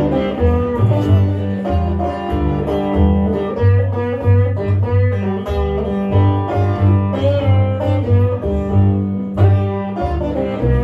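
Live acoustic blues music: plucked guitars playing an instrumental passage, with a steady pulsing bass-note pattern under the picked notes and no singing.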